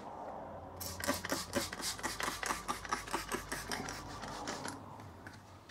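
Fingers rubbing quickly over a vinyl side-stripe decal, pressing it down onto the car's paint: a dry scratching at about six strokes a second that starts about a second in and stops near the end.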